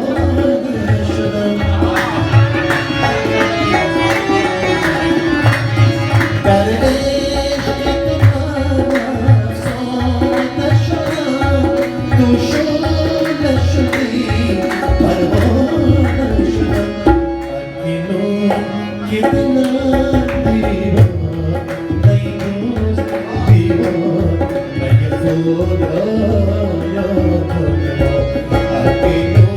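Afghan song with tabla drums playing a quick, steady beat under a melodic instrumental line.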